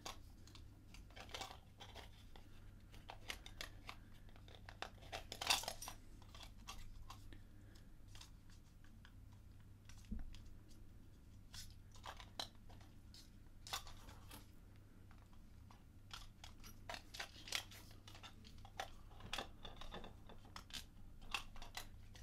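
Irregular small clicks, taps and scrapes of a 3D-printed plastic puzzle box being turned and worked in the hands, its loose pieces knocking and shifting. The sharpest knock comes about five and a half seconds in.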